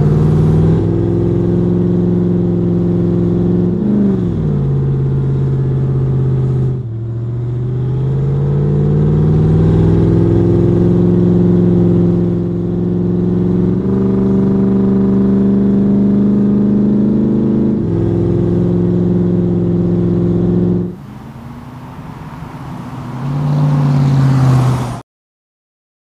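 Supercharged 6.2-litre HEMI V8 of a Ram 1500 TRX pulling under throttle, its pitch climbing as it accelerates and falling sharply at gear changes about four and seven seconds in. It drops away, builds again, and cuts off abruptly near the end.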